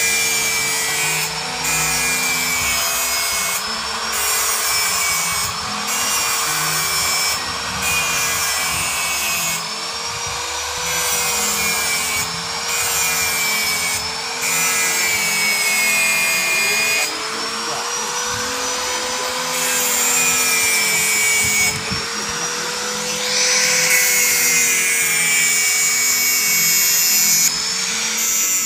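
Electric angle grinder running, its whine dipping and rising in pitch every second or two as it is pressed into metal, with a hissing grind that drops out briefly between passes.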